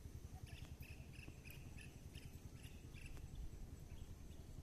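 Faint quick series of short, high chirps from a small wild creature, about three a second, stopping about three seconds in, over a steady low rumble.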